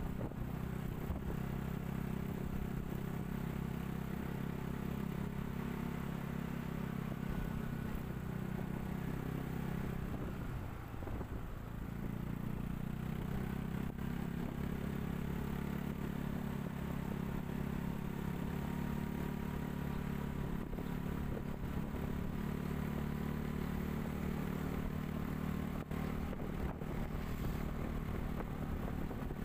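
Vehicle engine running at a steady cruise with tyre and road noise, heard from on board. The engine eases off for a moment about ten seconds in, then picks up again.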